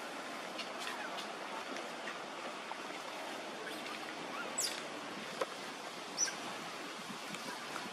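Outdoor forest ambience: a steady rushing hiss with a few brief high bird chirps, one falling in pitch about four and a half seconds in and another about six seconds in.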